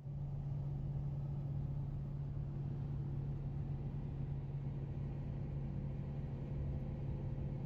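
Road and engine noise inside a pickup truck's cab while driving on a highway: a steady low drone over a rumble.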